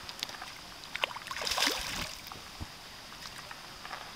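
A hooked carp thrashing at the water's surface, splashing in short bursts, with the loudest splashing about one and a half seconds in.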